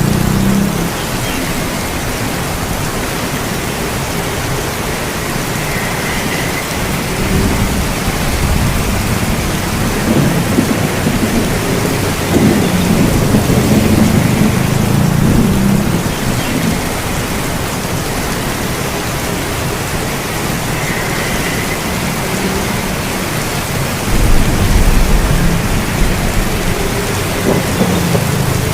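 Steady rain falling, with long low rumbles of thunder rolling in near the middle and again near the end.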